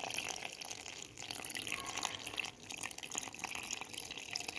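Milk being poured from a cup into a stainless-steel mixer-grinder jar over powdered biscuits, a steady liquid trickle.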